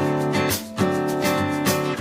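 Outro music: strummed acoustic guitar with a steady rhythm.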